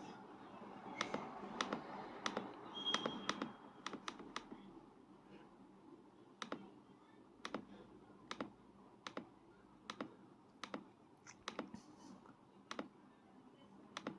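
Dell Inspiron 15 3000 laptop keyboard keys pressed one at a time to step down through the BIOS menu. It is a string of separate sharp clicks, roughly one a second, some in quick pairs.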